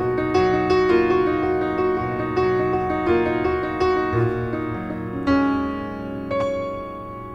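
Background piano music, single notes and chords struck and left to ring, growing sparser and quieter toward the end.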